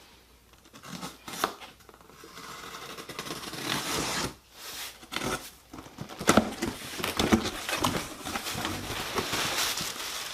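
Packaging being handled and unwrapped: irregular crinkling and tearing with scattered sharp clicks, building up after the first couple of seconds.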